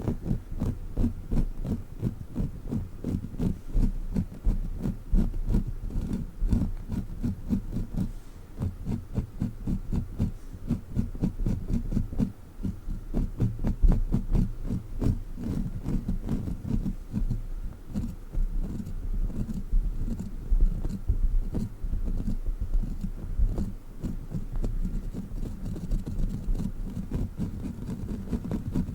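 Sticky crawler toy handled close to the microphone in ASMR fashion: rapid, irregular thumps and taps, several a second, without a break.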